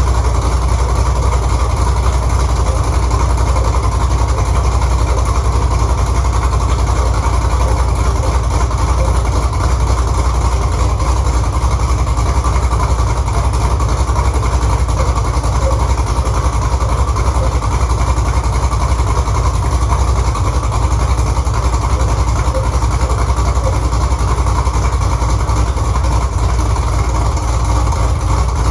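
1968 Camaro's newly swapped 6.2-litre LS V8 idling steadily through its Hooker headers, the engine freshly started and settling after its first fire-up. The idle stays even with no revs.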